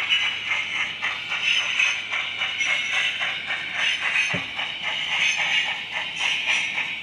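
Model train running on its track: a continuous mechanical whir with a quick, even clicking rhythm of wheels and mechanism.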